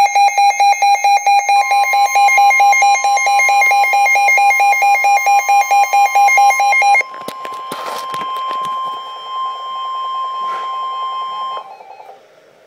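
A weather alert radio's alarm beeping rapidly, about three beeps a second, over the steady single-pitch warning alarm tone that NOAA Weather Radio sends ahead of a warning. The beeping stops about seven seconds in, with a couple of brief knocks after it, and the steady tone cuts off about a second before the end.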